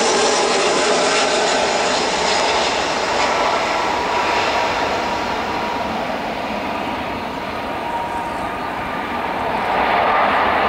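Airbus A320 airliner's jet engines passing close on short final: a steady rushing jet noise with a high whine of fan tones over it. The sound dips slightly around touchdown about six seconds in, then swells again near the end as the plane rolls out.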